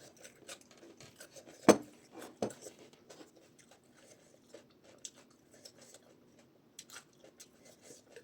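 Light clinks and taps of dishes during a meal, with one sharp knock a little under two seconds in and a smaller one soon after.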